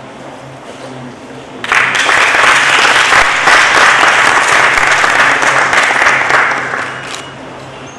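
Audience applauding. It breaks out suddenly a little under two seconds in, holds steady, then dies away about seven seconds in.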